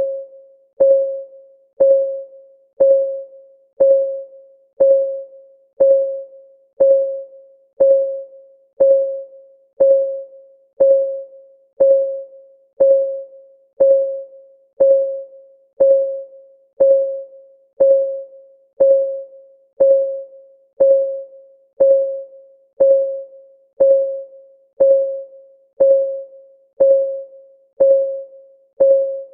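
Countdown timer's clock-ticking sound effect: one short, pitched tick each second, each fading quickly, in a steady unbroken rhythm.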